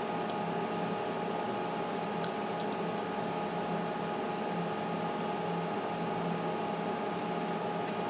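Steady electric fan hum with a few faint steady tones running through it.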